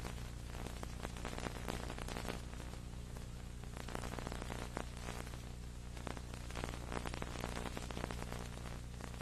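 Steady electrical hum with a dense crackle of static, with no commentary or crowd: the program sound has dropped out of the recording.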